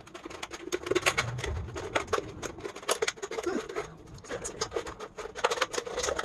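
Scissors cutting around a thick-walled plastic Coca-Cola soda bottle: rapid, irregular snips and crackles of the stiff plastic, easing briefly about four seconds in.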